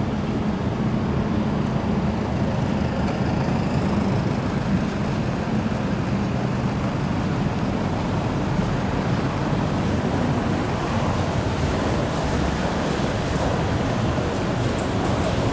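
Steady road traffic noise from passing cars and vans. A thin high whine joins about ten seconds in and stops near the end.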